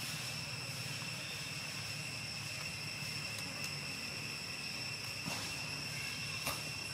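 Steady high-pitched drone of insects, over a low steady hum, with two faint clicks near the end.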